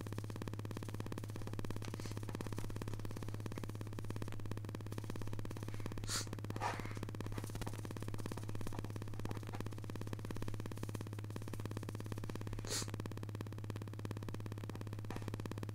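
Steady low electrical hum, with a few short breaths about six and thirteen seconds in.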